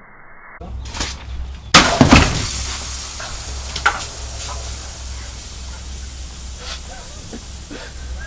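A heavy blow bursts cans of Pepsi with a loud crack of several strikes, then the shaken soda sprays out in a long hiss that slowly fades.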